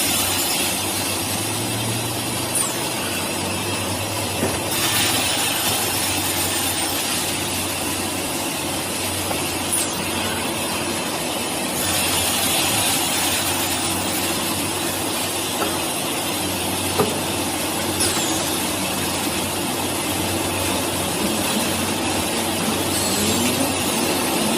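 Wood-cutting machinery running steadily: a continuous mechanical hum under a dense hiss, with a few faint clicks.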